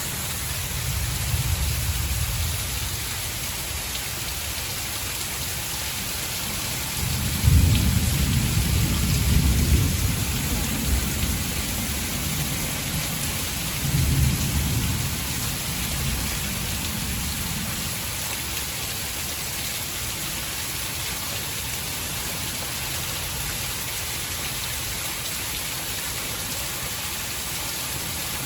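Heavy rain pouring steadily, with rumbles of distant thunder partly muffled by the rain: a loud rumble about seven seconds in and another about halfway through.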